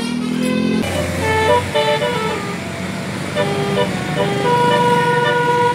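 A bus's multi-tone 'telolet basuri' musical horn playing a quick tune of short stepping notes, cutting in abruptly less than a second in and ending on a long held note, over a low steady rumble.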